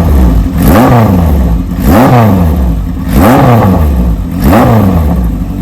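Kawasaki KZ1000 inline-four with a Wiseco 1045 big-bore kit and Kerker header, blipped by hand about four times: each rev rises quickly and falls back toward idle, about once a second.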